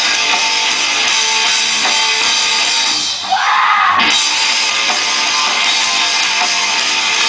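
Live rock band playing loud and dense, with distorted electric guitar and drums. About three seconds in the sound thins briefly while a single tone bends up and back down, then the full band comes back in on a sharp hit.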